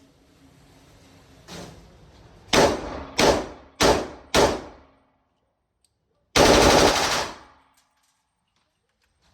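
Gun firing: a single shot, then four shots in steady succession about half a second apart, then a rapid burst lasting about a second.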